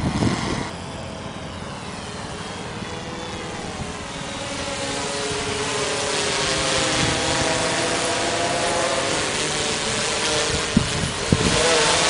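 Mariner waterproof quadcopter's propellers whining as it flies overhead, several tones drifting up and down as the motors correct, growing louder over the first half as it comes closer. Wind is buffeting the microphone.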